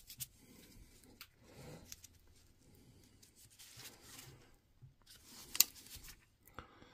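Light rustling and scattered small clicks from hands working on battery pack parts, with one sharper click about five and a half seconds in.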